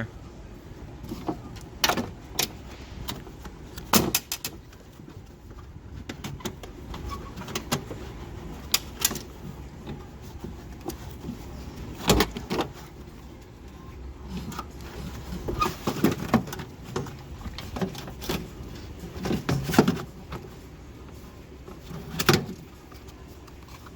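Irregular clicks, knocks and rattles of hand work inside a car door, as the Torx screws are undone and the front door lock actuator is worked loose; the louder knocks come about 4, 12, 20 and 22 seconds in.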